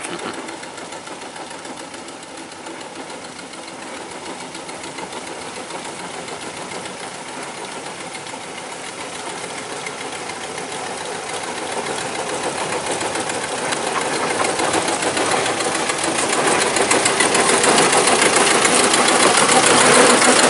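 Engine of a small 2 ft gauge industrial locomotive running with a fast, even beat as it approaches, growing steadily louder until it passes close by near the end.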